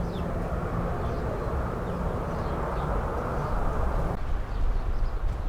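Wind blowing and buffeting the microphone, a rushing noise over a low uneven rumble, with faint bird chirps. About four seconds in, the higher rushing drops away suddenly, leaving a louder, deeper rumble.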